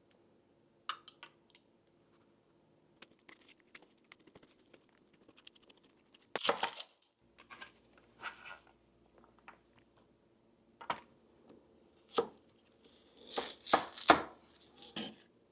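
Scattered clicks, knocks and scraping of hand food preparation, with a longer scrape about six seconds in and a cluster of louder, rougher scraping and rustling strokes near the end.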